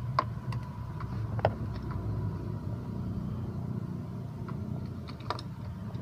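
Washing machine's spin-dryer motor running with a steady low hum, with a few sharp clicks, the loudest in the first two seconds.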